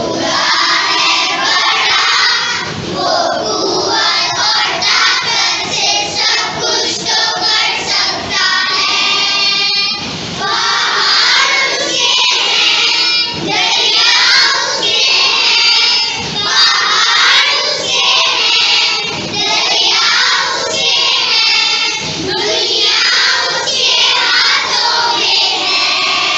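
A large group of young children singing a song together, loudly and in unison.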